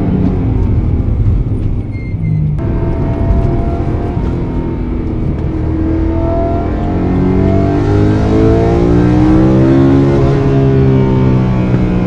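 BMW E92 M3's naturally aspirated 4.0-litre V8, heard from inside the cabin while driving, with low road rumble. From about halfway, the engine note rises steadily in pitch as the car accelerates, then levels off near the end.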